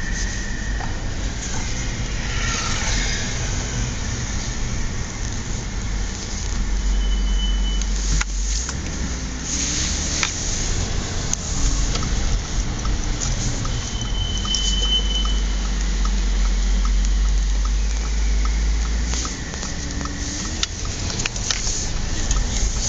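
Audi S4 B8 driving, with the steady rumble of car and road noise. Its brakes give two short high-pitched squeals, one about a third of the way in and a brighter one a little past halfway.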